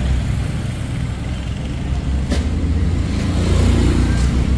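Street traffic: motor vehicle engines running with a steady low rumble, louder near the end as a motorcycle passes close by.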